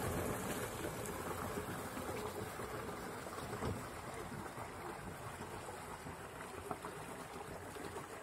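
Paddle wheel of a fibreglass two-seater pedal boat churning water: a steady splashing that slowly fades as the boat moves away.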